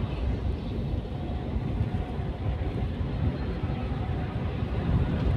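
Steady road noise of a car at highway speed heard from inside the cabin: a low, even rumble of tyres and engine.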